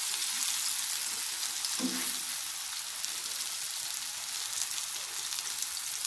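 Halved pisang lilin bananas frying in margarine in a nonstick pan: a steady sizzle with fine crackles.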